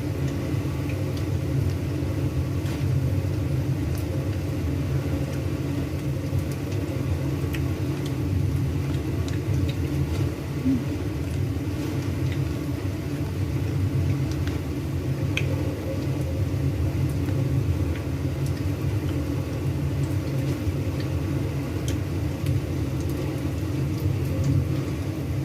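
A steady low rumble with a few faint, scattered clicks.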